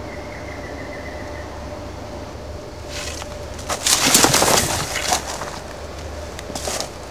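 Rustling and scuffling in dry grass and leaf litter as a yellow-spotted monitor (Varanus panoptes) scrambles off and the camera is jerked about. The noise is loudest for about a second and a half, starting a little under four seconds in, with smaller scuffles just before and near the end.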